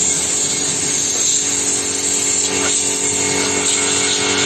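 Compressed-air blow gun on a hose hissing steadily as it blasts dirt off a pair of sneakers, with a steady low hum beneath.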